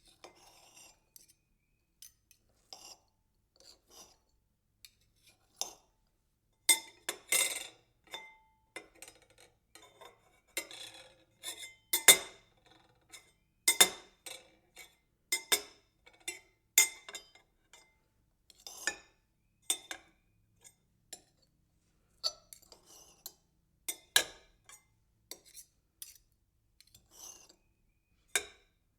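Metal knife rattling and clinking: irregular clusters of sharp metallic clinks, some ringing briefly, loudest in the middle stretch.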